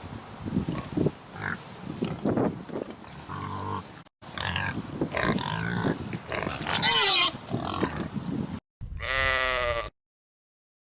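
Farm animals grunting and calling in a run of short clips split by abrupt cuts, then one short call with a clear pitch about nine seconds in.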